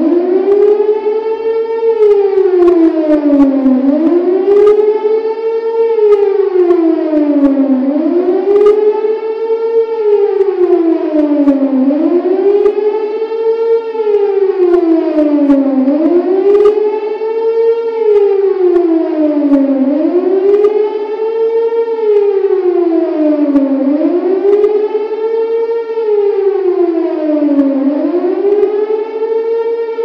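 Emergency warning siren wailing in a steady cycle: the pitch rises quickly, holds briefly, then slides back down, about once every four seconds.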